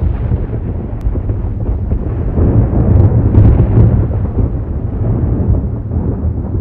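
Thunder rumbling low and continuous, swelling to its loudest about three seconds in and easing toward the end.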